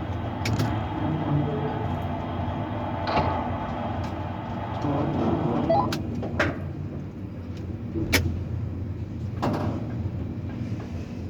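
Tower crane machinery humming steadily, with about six sharp clicks and knocks spread through it.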